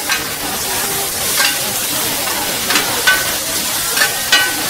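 Food sizzling as it is stir-fried over high heat, with a steady hiss. A metal utensil clinks against the wok about six times, each clink ringing briefly.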